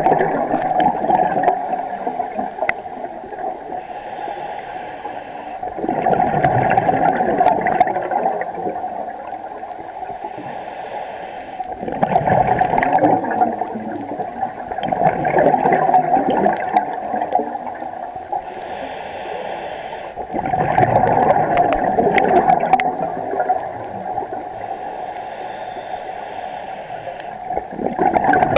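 Scuba diver breathing through a regulator underwater: a loud gurgle of exhaled bubbles about every seven to eight seconds, with a softer hiss of inhalation in between.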